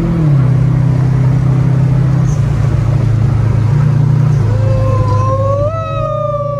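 Subaru Impreza's flat-four engine heard from inside the cabin while driving, a steady drone whose pitch steps up and down a few times. Near the end a separate wavering tone rises and then falls away.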